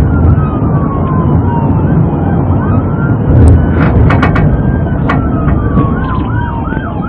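Police car siren alternating between quick rising yelps and long slow falling wails, over heavy engine, tyre and wind noise from the cruiser driving at about 60 mph. A few sharp clicks come a little past halfway.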